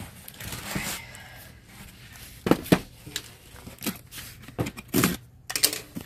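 Cardboard boxes being handled and opened: a light rustle of cardboard, then a handful of sharp knocks and scrapes as flaps are pulled open and the box is moved.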